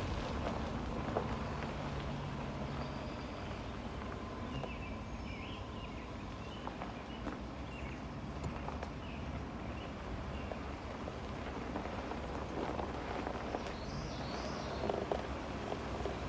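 Truck rolling slowly along a rutted dirt road, heard from a phone held outside the truck: a steady low rumble of engine and tyres with scattered small knocks and crunches. A few short bird chirps come through, around a quarter of the way in and again near the end.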